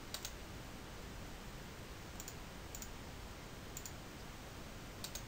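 Faint, scattered clicks of a computer mouse, about half a dozen and some in quick pairs, over a low steady hiss.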